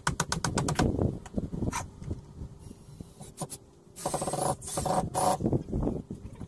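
Hand work on a wooden shed: a quick run of clicks in the first second, then two short rasping scrapes about four and five seconds in.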